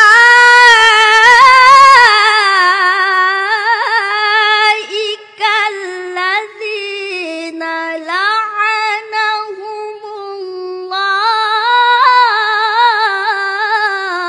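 A boy's solo voice in melodic Quran recitation (tilawah): long, heavily ornamented phrases, loudest and highest at the start, with a short break about ten seconds in, then a final phrase that falls in pitch at the end.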